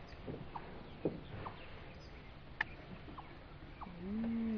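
Great blue heron giving one harsh croak about four seconds in, lasting under a second and rising then falling in pitch. Before it come two sharp knocks and a few faint short chirps.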